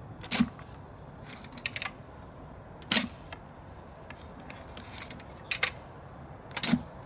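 Manual clamshell post-hole digger jabbed down into soaking-wet, soft ground: three hard strikes about three seconds apart, each with a dull thud, and a few lighter knocks between them.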